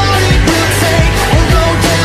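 Background music track with a steady, driving beat.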